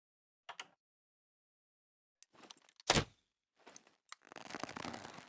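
Makeshift crossbow handled and shot: a quick double click, a scraping stretch, then a loud sharp snap about three seconds in, followed by another click and about a second of rattling that stops near the end.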